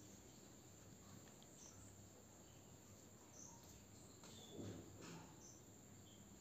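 Near silence: faint background hiss with a few faint, short high chirps spaced about two seconds apart.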